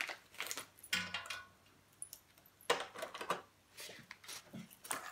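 Clear plastic packaging bag crinkling and rustling as it is picked and pulled at by hand to tear it open, in short irregular bursts with brief pauses.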